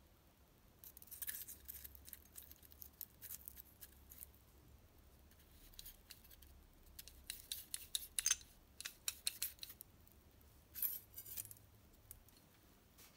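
Small steel parts of a Vespa engine's clutch being handled and fitted by hand: light metallic clicks and scrapes coming in several irregular flurries.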